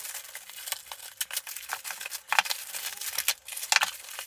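Plastic-wrapped accessory boxes being handled: irregular crinkling of the wrapping with light taps as the boxes are set down on a wooden table, a couple of louder clicks about two and a half and nearly four seconds in.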